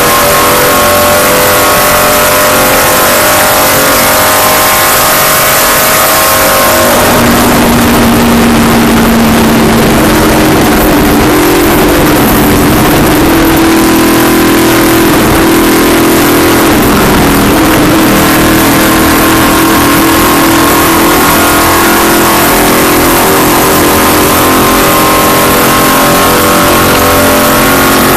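Race car engine running hard at speed, very loud, over a constant rush of noise. Its pitch drops about seven seconds in, then climbs back over the following seconds.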